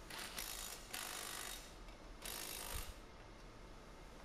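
Cordless electric ratchet running in three short bursts, driving down the nuts that hold the lower ball joint to the control arm.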